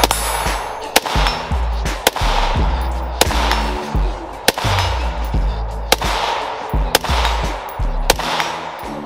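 AR-15-style rifle firing single shots, about one a second, over background music with a heavy bass beat.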